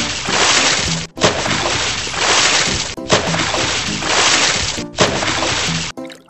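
Cartoon water-splash sound effect: a loud splashing rush that starts again with a sharp hit about every two seconds and stops shortly before the end, over background music.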